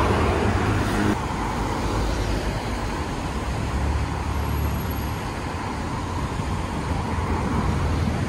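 Road traffic on a busy city street: cars and vans passing close by, a steady rush of engines and tyres that swells a little as vehicles go by.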